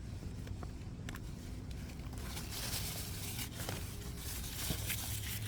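Poly tarp crinkling and rustling as it is handled, with a few small clicks, growing busier about two seconds in.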